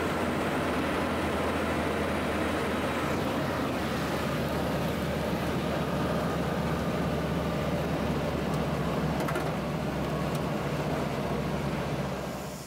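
Single-engine floatplane's piston engine and propeller running steadily, heard from inside the cabin as a loud, even drone.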